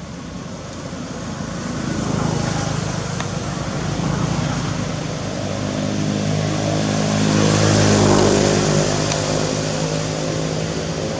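A motor vehicle's engine running. Its hum swells to a peak about eight seconds in, then eases off, as a vehicle passing by would.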